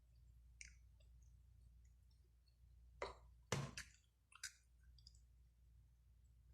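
Quiet eating sounds: a few sharp mouth clicks and smacks while chewing, with a louder cluster of them about halfway through, over a faint low hum.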